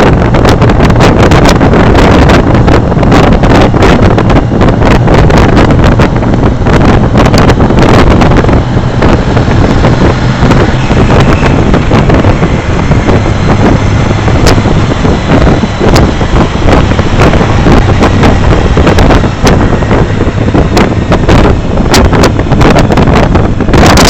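Loud wind buffeting and crackling on the microphone at road speed on a moving motorcycle, over the steady low drone of motorcycle engines.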